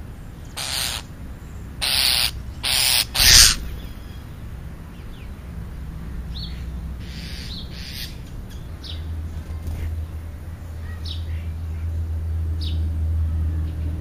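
Small birds giving short, scattered chirps, after four short, loud rushing noises in the first three and a half seconds. A vehicle's low engine hum swells from about nine seconds in.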